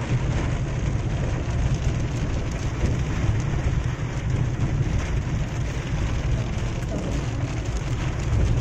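Heavy rain in a storm: a loud, steady hiss of rain with a deep rumble underneath.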